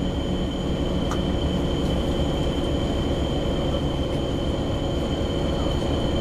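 Cabin noise aboard a Nova LFS articulated city bus: a steady drone and rumble from the engine and running gear, with a constant high-pitched tone over it and a faint click about a second in.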